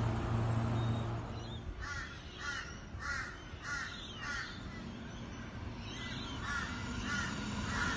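A stationary electric train's steady low hum for about the first second, stopping abruptly. Then a crow cawing in two runs of short, evenly spaced calls, about five and then about four.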